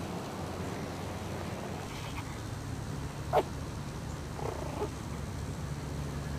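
Maltese puppies at play: one short, sharp yelp a little past halfway and a brief pitched whimper about a second later, over a steady low hum.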